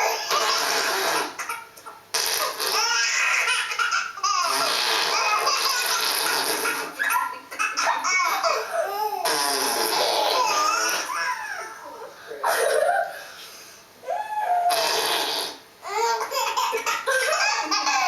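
A baby laughing hard, in long bursts of belly laughter and giggles with short breaks between.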